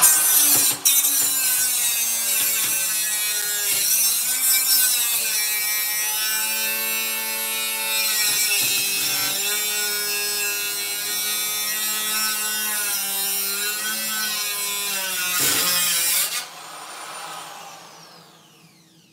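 Angle grinder's abrasive wheel cutting into a microwave oven's sheet-metal casing: a loud grinding with the motor's pitch sagging and recovering as the wheel bites. About sixteen seconds in the wheel comes off the metal and the grinder spins down with a falling whine.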